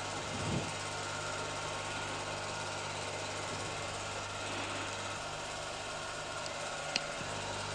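Steady low hum with an even hiss underneath, unchanging throughout, and a single faint click near the end; no race-car engine sound stands out.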